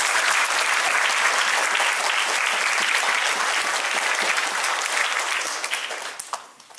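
A standing church congregation applauding, the clapping fading out near the end.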